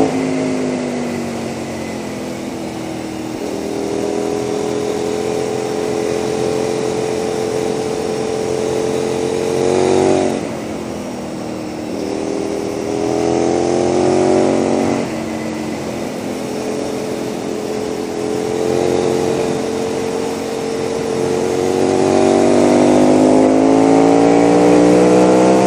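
KTM 990 SMR's V-twin through a Leo Vince exhaust, pulling on the throttle with the pitch climbing gradually, dropping sharply about ten seconds in and again about fifteen seconds in as the throttle is rolled off, then rising again near the end. Steady wind hiss runs underneath.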